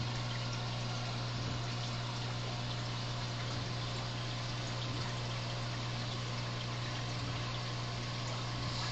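Aquarium filter running: water trickling and splashing steadily over a constant low hum from its pump.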